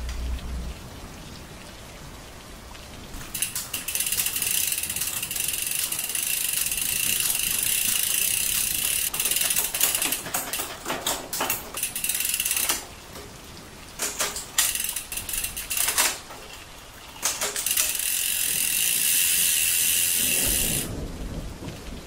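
Bicycle drivetrain turned by hand on a work stand: the chain running over the chainrings and cassette, with the rear hub's freewheel ratcheting in a fast, steady buzz. It runs in two long spells, the first about three seconds in, the second near the end, with a few separate clicks in the pause between.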